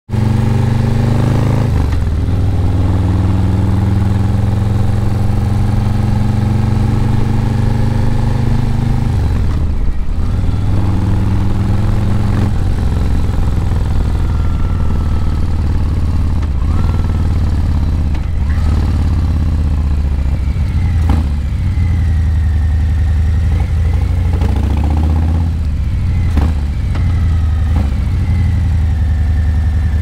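Harley-Davidson Breakout 117's Milwaukee-Eight 117 V-twin running through Vance & Hines Eliminator 300 slip-on mufflers while the bike is ridden. The engine note is loud and steady, and drops lower about ten seconds in.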